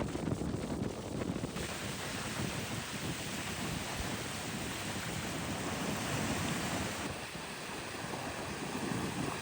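Strong sea wind buffeting the microphone, over the steady wash of waves on the shore.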